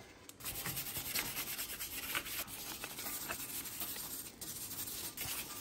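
Steel wire brush scrubbing rust and scale off the face of a car's front wheel hub, with rapid back-and-forth scratching strokes, cleaning the mating surface after the brake rotor is removed.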